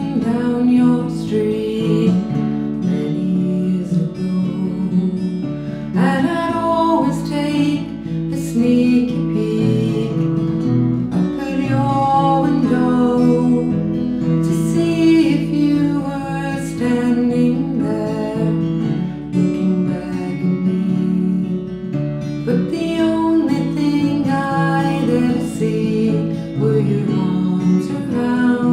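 Two acoustic guitars strumming and picking a slow folk song.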